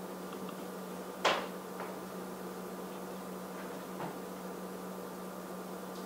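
Steady hum of room noise, with one sharp knock about a second in and two fainter taps after it.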